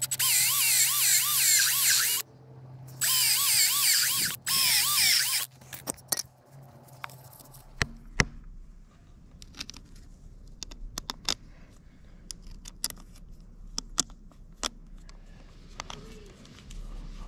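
Cordless drill running in three bursts, its motor whine wavering under load as it bores bolt holes through the Argo track's rubber-and-cord belting. After that come scattered light metallic clicks and taps as a steel grouser bracket and its bolts are fitted.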